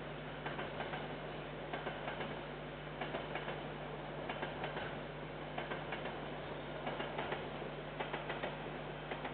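Freight train wagons rolling past, their wheels clicking over rail joints in small clusters about once a second, over a steady hum and hiss from a security camera's microphone.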